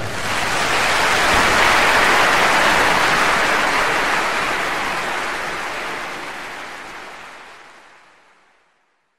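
Capsule espresso machine dispensing coffee into a metal cup: a steady hissing rush of liquid that fades gradually and is gone about eight seconds in.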